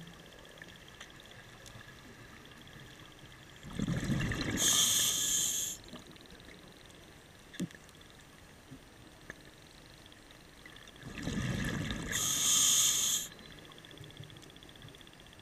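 Scuba diver breathing through a regulator underwater: two breaths about seven seconds apart, each a couple of seconds of bubbling rumble followed by a loud hiss.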